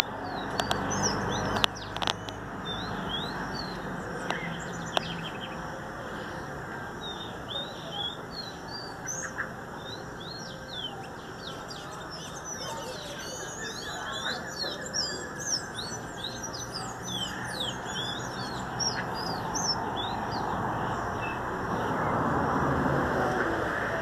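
A caged songbird singing a long run of quick high chirps and whistled slurs, sparse at first and then dense through the middle and later part, over a steady background hiss. A few sharp clicks sound in the first two seconds.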